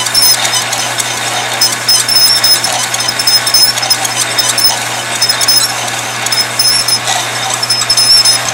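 An old metal lathe running while a grooving tool cuts a circlip groove into a spinning brass rod. The cut gives a thin, high squeal that comes and goes over the lathe's steady low hum, with scattered small clicks.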